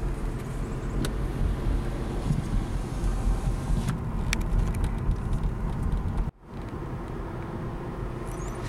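Car cabin noise while driving: a steady low rumble of engine and tyres on the road, with a few light ticks and rattles. It cuts out suddenly for a moment about six seconds in and comes back slightly quieter.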